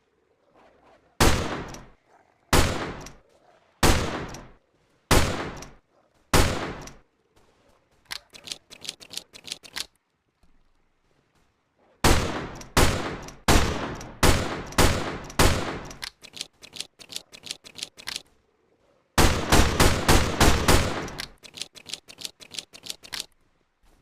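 Smith & Wesson Model 3 revolver shots. First come five single shots evenly spaced a little over a second apart, then a run of lighter clicking. Next is a faster string of about six shots, and near the end a very rapid burst of shots tailing off into clicks.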